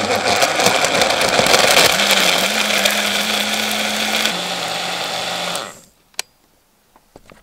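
Personal blender running with its cup pressed down on the motor base, crushing ice cubes and cherries with ice cream and milk. It crackles and crunches for the first couple of seconds, then settles into a steadier whir as the mix turns smooth. It stops about six seconds in, followed by a single click.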